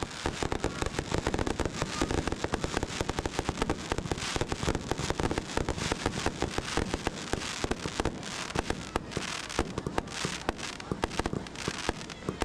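Fireworks going off in a dense, continuous run of sharp pops and bangs, many a second.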